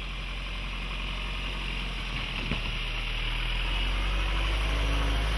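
Toyota Hilux's 2.4-litre four-cylinder diesel idling steadily, slowly getting louder.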